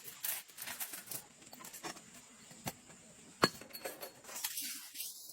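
Irregular light clicks and knocks, with one sharp, loud knock about three and a half seconds in.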